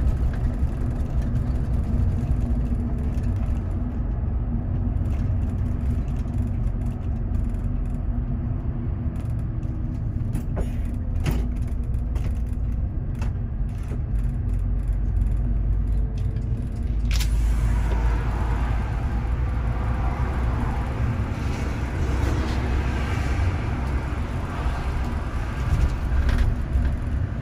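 Steady low rumble of a bus's engine and tyres at highway speed, heard from inside the cabin. About seventeen seconds in, a louder rushing hiss joins it.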